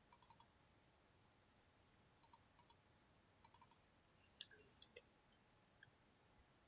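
Faint, quick clicks of computer keyboard keys, tapped in three rapid runs of three or four, then a few softer scattered ticks.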